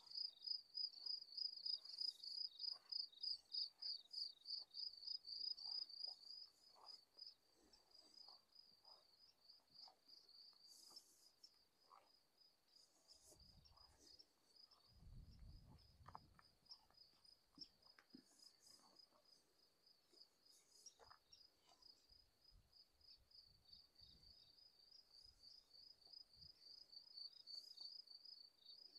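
A cricket chirping, a steady high-pitched pulsing song that is louder for the first six seconds or so and then fainter.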